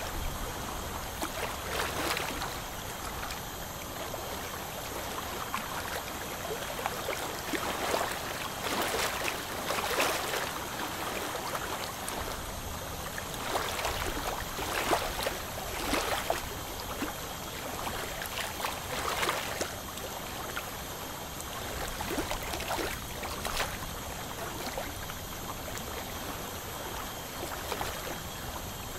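Ultrasonic dental scaler running against the teeth with its water spray, a steady watery hiss broken by many short, uneven louder scrapes, as it removes hardened tartar (calculus) from the teeth.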